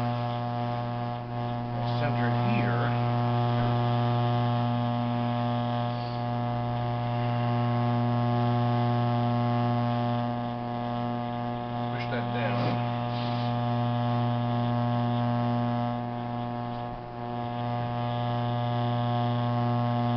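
Electric potter's wheel running with a steady electrical hum while clay is centered and coned up on the spinning wheel head, the level dipping slightly now and then. A few faint squeaks come through briefly, once about two seconds in and again about twelve seconds in.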